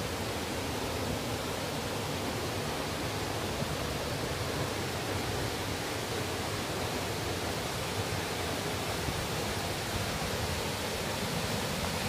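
Waterfall rushing steadily: an even, unbroken noise of falling water that does not change.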